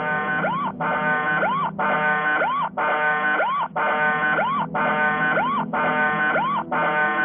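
Deep Sentinel security system's siren sounding in a repeating cycle about once a second: a harsh sustained tone ending in a short rising whoop, then a brief break.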